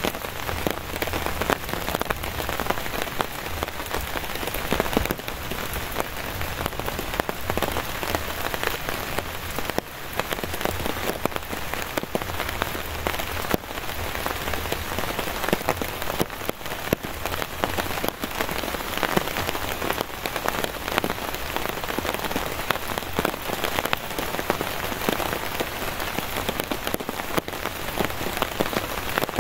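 Heavy, steady rain, with many separate drops striking close by.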